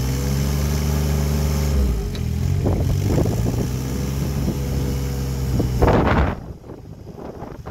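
The Yanmar diesel engine of a Thwaites Mach 201 high-tip dumper running steadily under load while its hydraulics lift the skip. A short loud surge comes about six seconds in, as the skip reaches full height, and the engine then drops to a much quieter idle.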